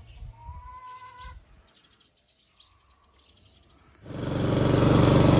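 A petrol lawn mower engine, just primed with fuel, catches about four seconds in and at once runs steadily and loud. Before it, a short high chirp and near quiet.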